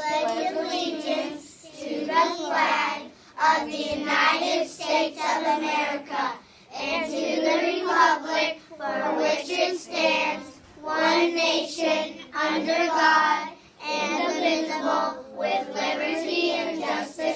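A class of young children reciting the Pledge of Allegiance together in unison, in phrases of a few seconds with short pauses between them.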